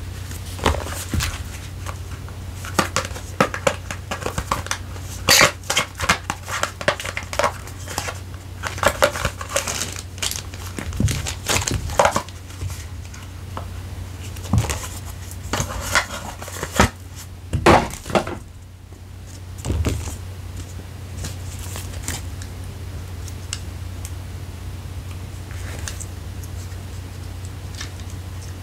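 Hands handling packaging and camera parts: a run of sharp taps, clicks and crinkles, thinning out to a few faint ticks after about two-thirds of the way through, over a steady low hum.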